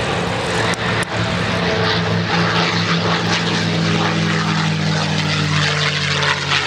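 P-51D Mustang's Merlin V-12 engine at full power on takeoff, a steady propeller-aircraft drone whose pitch sinks slightly near the end as the plane passes and climbs away.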